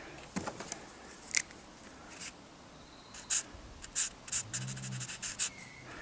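Marker pen scratching and dabbing through holes in a cardboard template onto rubber sheet, marking bolt holes: a few scattered scrapes at first, then a quick run of short scratchy strokes from about halfway.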